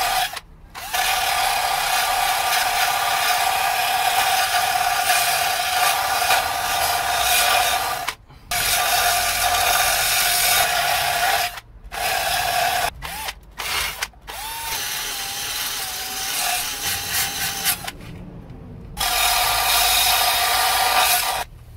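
Cordless drill spinning a wire wheel against the rusty steel of a car's rear wheel arch, scrubbing the rust back to clean metal. It runs in long bursts with a few short stops, the motor's whine wavering in pitch in one stretch near the middle.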